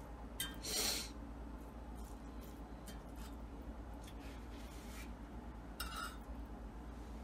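Kitchen utensils scraping and clicking in a crock pot while fat is picked out of a cooked beef roast, with a brief rustling scrape about a second in.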